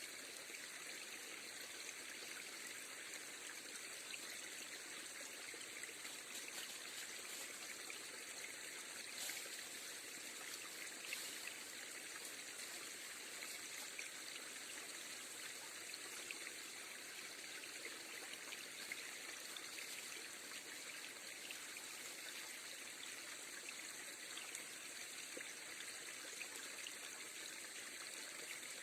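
River water flowing steadily over a shallow bed, a continuous faint rush with a few small ticks.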